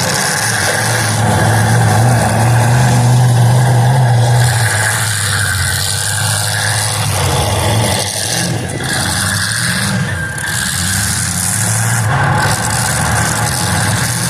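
Demolition derby car engines running and revving, loudest in the first few seconds, their pitch wavering up and down afterwards.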